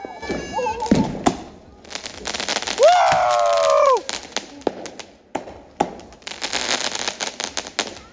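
Fireworks going off: a rapid run of crackling pops and sharp bangs, densest in the last couple of seconds. About three seconds in, a loud drawn-out tone rises and then falls for about a second over the crackling.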